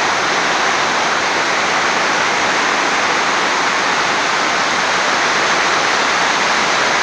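Heavy tropical downpour: a loud, steady, dense hiss of rain with no letup.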